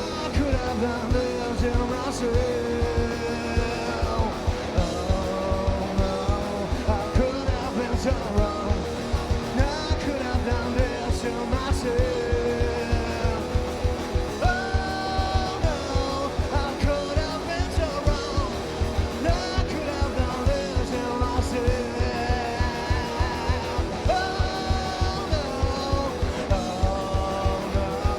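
A live rock band playing: electric guitar, bass and drums with a fast, steady beat, and a singer's voice over them.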